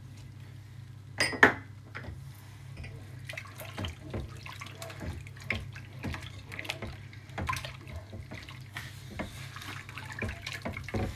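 Silicone spatula stirring semolina into hot milk in a steel pan: irregular scraping, clicking and liquid sloshing, with one louder knock about a second and a half in, over a steady low hum.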